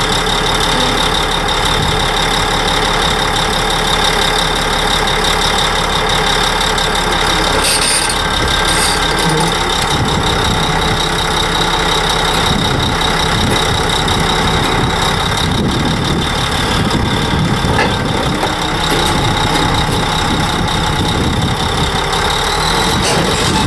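Caterpillar D8 crawler dozer's diesel engine running steadily as the dozer creeps onto a heavy-haul trailer, with a steady high whine over the engine noise.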